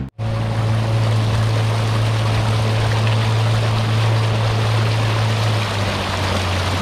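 Two-stroke outboard motor running steadily with the boat under way: a constant low hum over the rush and splash of water along the hull.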